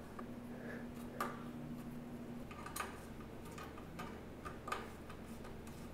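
Faint, irregular metallic clicks and ticks as a 4 mm hex key works the bolts of an e-bike's rear rack mount loose.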